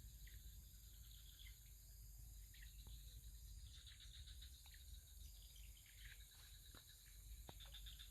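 Faint outdoor ambience: a steady high-pitched insect drone, with scattered clusters of short chirps from insects or birds.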